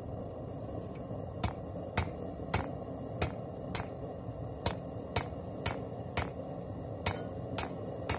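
Hand hammer striking a red-hot forge-welded damascus billet of bandsaw blade and pallet strap on a 55 lb steel anvil. A steady run of sharp blows, about two a second, begins about a second and a half in, as the billet is squared and its welds set.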